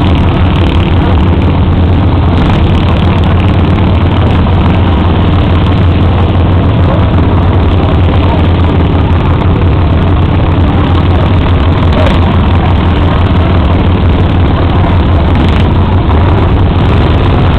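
Pulling lawn tractor's engine running hard under the load of a weight sled, a loud, steady, unbroken drone with a deep hum.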